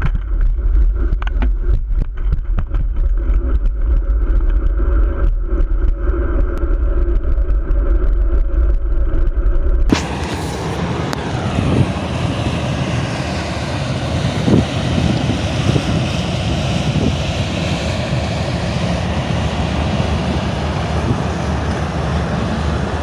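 An engine runs steadily with a strong deep rumble. About ten seconds in it gives way abruptly to a steady rushing of wind on the microphone and moving water, as on a boat underway on a canal.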